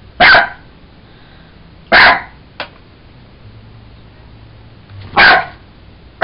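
Jack Russell terrier barking: three short, loud single barks, the second about two seconds after the first and the third about three seconds later, with a brief click between the second and third.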